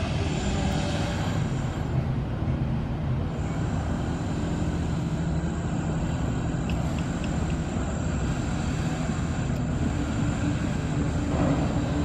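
Boat engine running steadily, heard from on board: a continuous low rumble with a faint, steady high whine over it.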